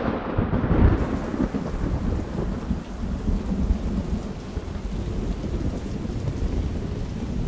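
Thunder rumbling, loudest in the first second, giving way to the steady noise of heavy rain.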